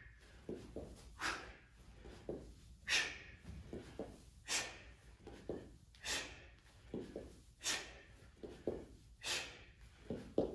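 A man breathing hard through a fast floor-touch conditioning drill: a sharp, forceful exhale about every second and a half, with soft footfalls on the gym floor between breaths.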